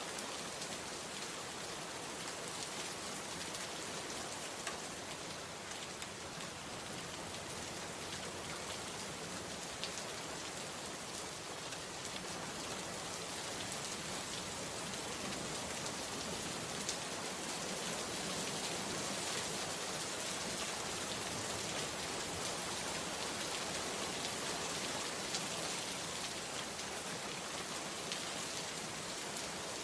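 Steady rain falling, a dense even hiss with scattered individual drops ticking on surfaces, growing a little louder about halfway through.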